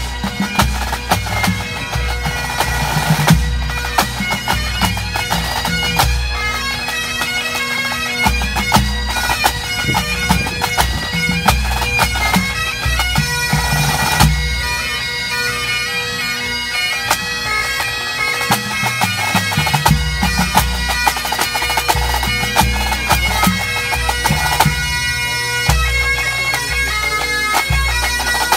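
Pipe band playing a medley: Great Highland bagpipes over their steady drones, with snare drums crackling and bass and tenor drums beating underneath. The low drum beat drops out briefly twice.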